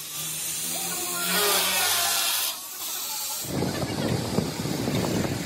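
Handheld angle grinder running and cutting into orange PVC pipe, with a hissing grind for about a second in the middle of its run. A little past halfway, a motorcycle cargo rickshaw's engine running as it is driven.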